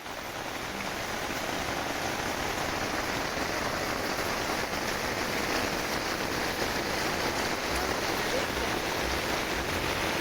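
Steady rain falling, an even hiss of drops that fades in at the start and then holds.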